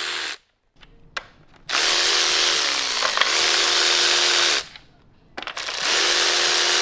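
An electric power tool running in two runs of about three seconds each with a steady whine, after a short blip about a second in.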